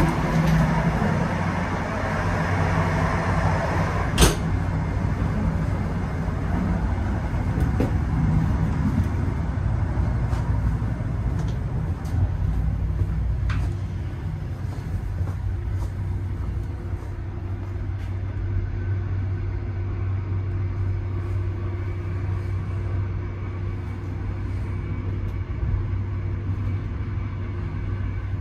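Train rumble with a steady low hum, with a sharp knock about four seconds in and a few fainter clicks.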